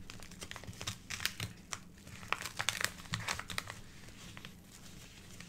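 Kraft-paper bubble mailer (Uline economy bubble mailer) crinkling and crackling as hands handle and press on it, with dense sharp crackles for the first three and a half seconds, then fainter rustling near the end.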